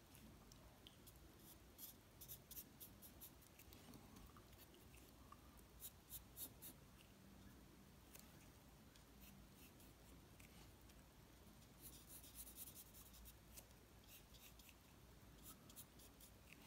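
Faint scratching of a pen drawing on paper, in clusters of short strokes with brief pauses between them.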